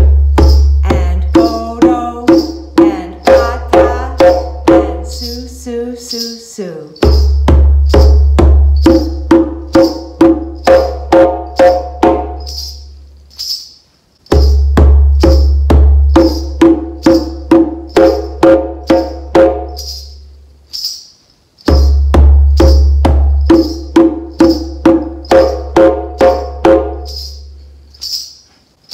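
Djembe played in a repeating warm-up cycle of four bass strokes, four tones, four slaps and four silent beats, heard four times over, each cycle ending in a short gap as the notes die away. The bass strokes come through as a dull thud. Ankle bells jingle on each beat as her feet keep the pulse.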